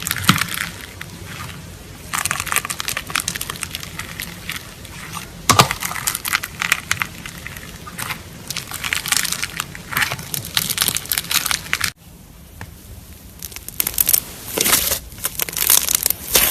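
Slime being squished and worked by hand, giving runs of crackling, clicking pops a second or two long with short pauses between them. The sound cuts out abruptly about twelve seconds in, then the crackling resumes.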